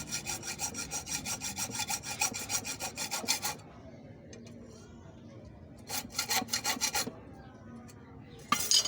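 Hacksaw blade rasping quickly back and forth across a homemade helicoil insert, scoring a notch mark where the coil is meant to snap off. It makes about six strokes a second for roughly three and a half seconds, then a second short run about six seconds in, and a brief louder scrape near the end.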